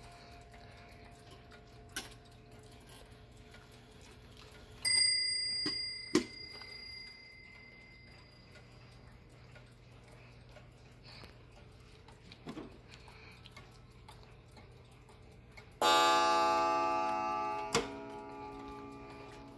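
Clocks ticking softly with scattered clicks. About five seconds in, a clock strikes once on a high, thin bell that fades over a couple of seconds. Near the end a single louder, fuller and lower strike rings on with a slow decay.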